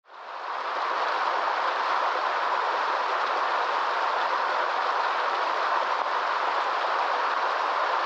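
Small forest stream cascading over rocks: a steady rush of falling water that fades in during the first second.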